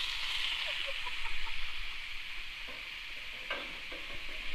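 Sausages sizzling in a hot frying pan, a steady hiss of fat just after they were tipped in. A single light knock about three and a half seconds in.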